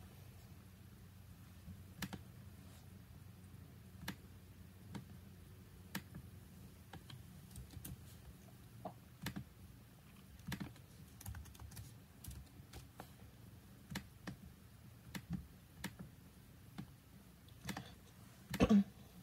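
Faint scattered clicks and light rustles of handling, over a low steady hum, with one louder bump and rustle near the end.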